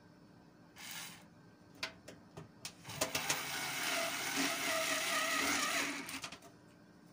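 Electric screwdriver running for about three seconds, driving a screw to fix the power supply into the computer case, after a brief whir and a few clicks of the screw and tool being set in place.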